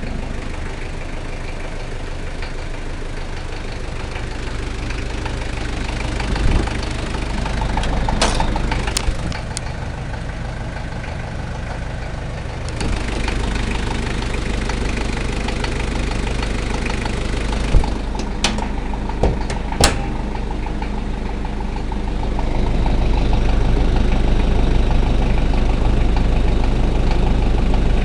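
Toyota 1KZ-T four-cylinder turbo-diesel engine running at idle, with the knocking noise its owner is trying to show. The sound grows louder twice, about halfway through and again near the end, and a few sharp clicks come through about a third of the way in and again past the middle.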